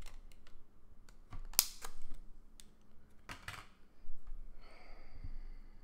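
Clear plastic bag crinkling and rustling as a small yo-yo is taken out of it, with scattered light clicks and taps of handling.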